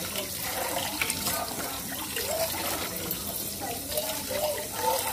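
Tap water running steadily into a sink, with a gurgling splash.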